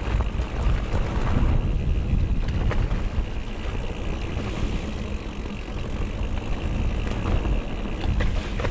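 Mountain bike being ridden along a dirt trail, picked up by an on-bike GoPro: a steady rush of wind across the microphone, with tyres and frame rattling over the ground and a few sharper knocks.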